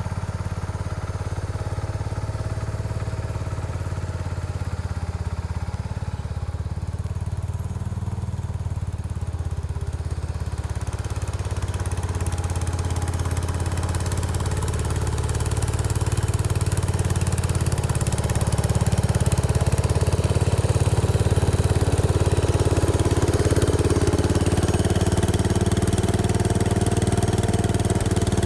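Case 224 garden tractor engine running steadily while its snowthrower blows snow, getting louder from about ten seconds in.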